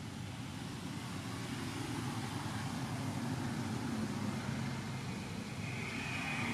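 Steady low rumble of a motor vehicle engine running, with a faint high-pitched tone coming in near the end.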